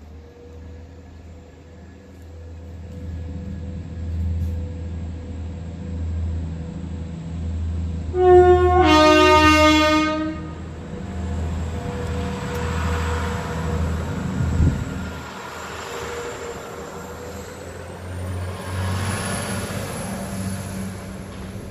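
Arriva Trains Wales diesel passenger train approaching and running over a level crossing. Its engine rumble builds, and about a third of the way in it sounds a two-tone horn for about two seconds, higher note then lower, the loudest sound. The noise of the train passing over the crossing follows.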